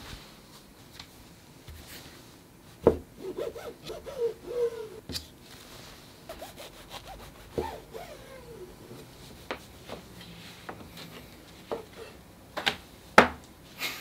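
Kitchen knife sawing through crustless white bread on a plastic cutting board, with squeaky scraping strokes and sharp knocks of the blade and hands on the board.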